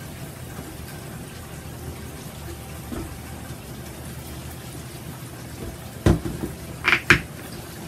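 Faint wet handling of a damp rag in plastic-gloved hands. About six seconds in comes a knock, then two sharp clatters, as a plastic bottle of soft cleanser is picked up and handled.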